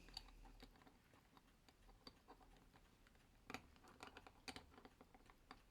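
Faint, irregular small clicks and taps of pocket-watch parts and small tools being handled, with a few sharper taps a little past the middle.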